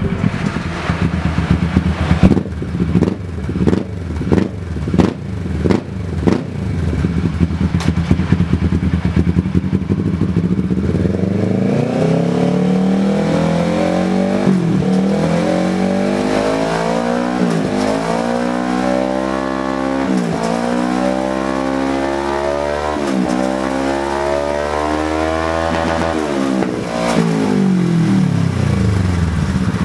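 Kawasaki Versys 650's parallel-twin engine through an aftermarket full-system exhaust: idling with a series of short throttle blips for about the first ten seconds, then pulling hard, the engine note climbing and dropping back about five times as it shifts up through the gears, and easing off near the end.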